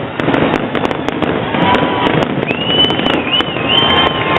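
Fireworks going off: a dense, continuous crackle full of sharp pops. A high whistling tone wavers in pitch through the second half.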